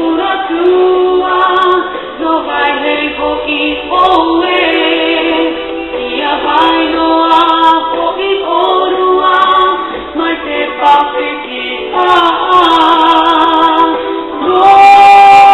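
Music: a song with sung vocals.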